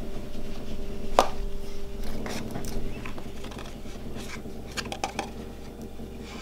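Light clicks, taps and rustles of baking containers and measuring spoons being handled on a table while baking soda is measured out, with one sharp click about a second in.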